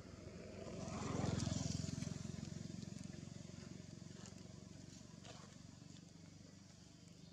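A motor vehicle's engine passing by. It swells about a second in, is loudest for about a second, then fades away slowly.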